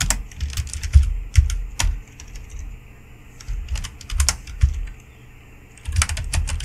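Typing on a computer keyboard: irregular keystrokes with short pauses, then a quick run of keys near the end.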